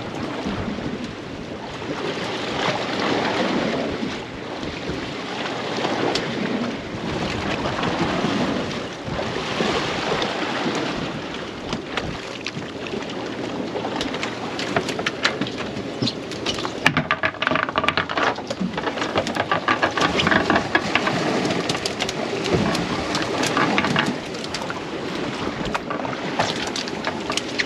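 Wind rushing over the microphone and water sloshing against the boat's hull, swelling and fading every few seconds, with a run of short clicks and knocks from about halfway in.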